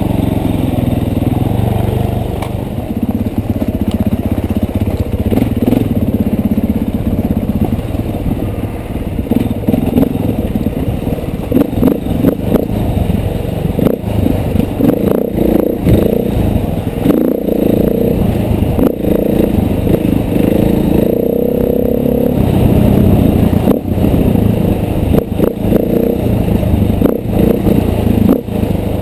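KTM 450 dirt bike's four-stroke single-cylinder engine running under load on a rough trail, its revs rising and falling with the throttle. From about halfway on, frequent sharp clatters and knocks from the bike working over rough ground.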